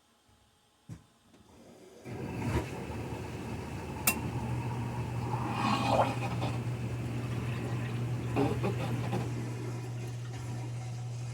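Bathtub tap opened about two seconds in: water rushing and spitting as trapped air is pushed out of the lines after the well system was repressurised. A couple of sharp clicks, and a steady low hum joins after about four seconds.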